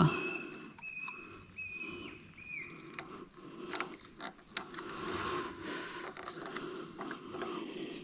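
Faint rustling and soft clicks of PTFE plumber's tape being stretched and wrapped around a threaded pipe fitting. A thin, high, steady whistle comes in short pieces over the first couple of seconds.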